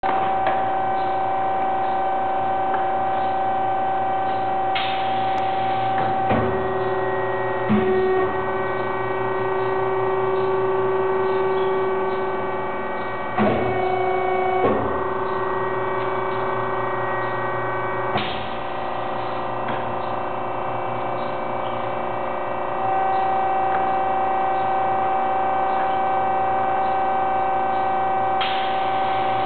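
Heat transfer printing machine running: a steady hum with several whining tones that switch on and off as it works. Clunks and short bursts of noise come every few seconds as the machine moves through its cycle.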